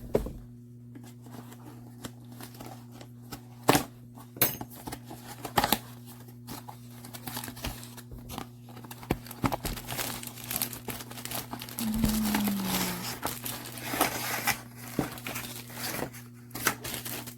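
Packaging being opened by hand: plastic and paper crinkling and tearing, with scattered clicks and knocks of the box being handled.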